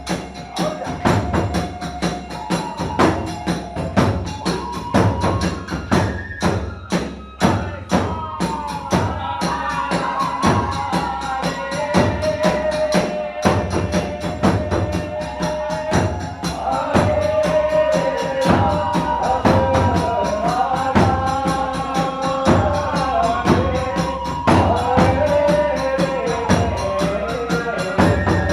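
Kagura hayashi ensemble playing a fast, steady beat: big-drum strikes and jangling small hand cymbals, with a wavering transverse-flute melody that grows busier about nine seconds in.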